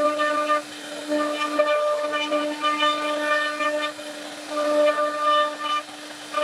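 CNC router spindle whining steadily at one pitch as its bit carves a relief pattern in wood. The whine grows louder and fuller in stretches of a second or so as the cutter bites into the wood, and eases between them.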